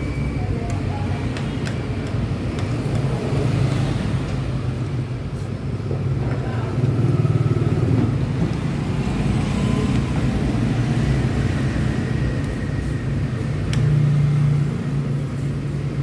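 Street traffic of passing motorbikes and cars, a steady engine hum that swells as vehicles go by about halfway through and again near the end. A few faint clicks of cutlery on a plate.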